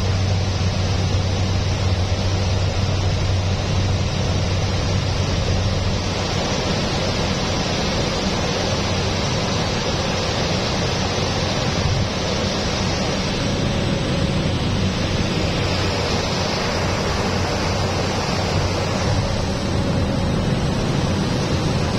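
Cockpit noise of a single-engine propeller plane on final approach: a steady loud drone of the engine and propeller with rushing air over it. The low hum eases a little after about four seconds.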